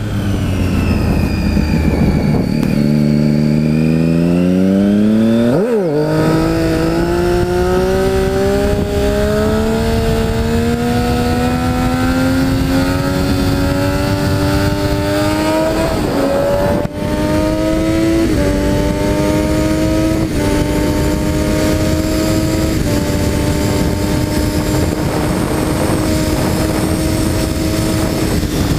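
Triumph Daytona 675's inline three-cylinder engine accelerating hard through the gears, heard from the rider's helmet. The revs climb, break with a quick gear change about six seconds in, then rise slowly for about ten seconds. Four quick upshifts follow, each a short drop in pitch, before the engine settles to a steady cruise.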